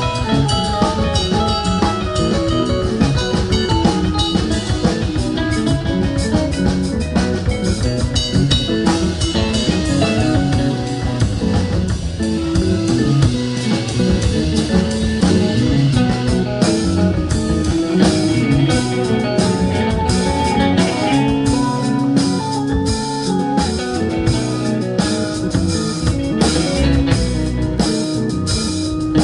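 Live rock band playing: electric guitars, bass guitar, keyboard and drum kit, with steady drum hits under the guitar and keyboard lines.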